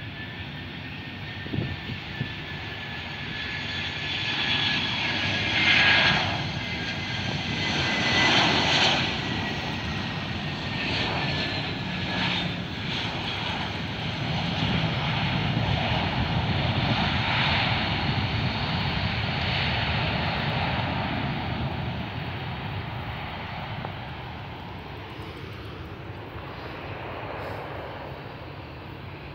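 Jet airliner landing, an Airbus A320 with CFM56 engines: a thin whine glides slowly down in pitch over the first dozen seconds as it passes, with two louder swells, then a broad, steady engine rumble through the middle as it rolls out, easing off near the end.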